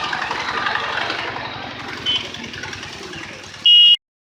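Street noise with a motor engine idling, its low pulses steady. A short, loud high-pitched beep sounds near the end, and the sound then cuts off to dead silence.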